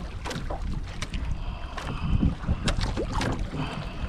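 Wind on the microphone and water noise aboard a small outrigger fishing boat at sea, with irregular knocks and clicks as a hooked fish is reeled in.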